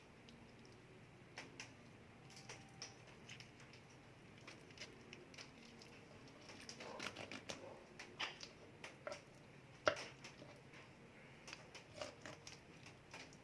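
Faint, irregular light clicks and taps, with a cluster of louder knocks from about seven to ten seconds in.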